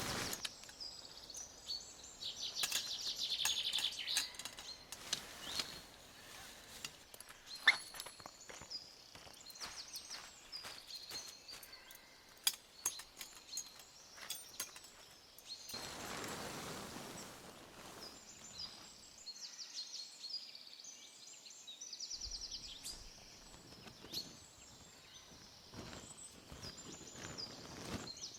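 Forest ambience: small birds chirping and trilling again and again, with scattered sharp clicks and knocks and a brief rush of noise about two-thirds of the way through.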